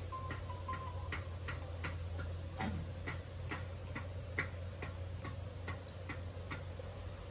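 Regular ticking, about two and a half ticks a second, over a steady low hum.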